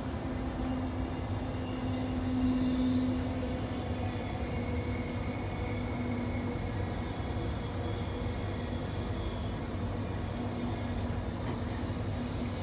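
Running noise inside a Queensland Rail New Generation Rollingstock electric train carriage at speed: a steady rumble of wheels on rails with a low hum that swells briefly about two seconds in.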